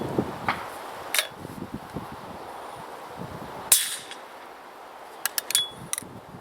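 A single shot from a .410 shotgun firing a 3-inch magnum shell, a sharp crack with a short tail about two-thirds of the way in. The gun is fitted with a moderator, so the shot is not much louder than a subsonic round. Several sharp clicks follow near the end.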